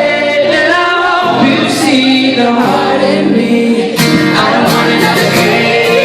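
A male pop singer singing a song live over instrumental backing, with guitar in the mix.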